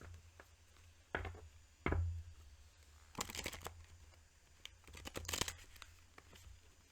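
A deck of oracle cards being handled: two knocks, then two short papery rustles of the cards being shuffled.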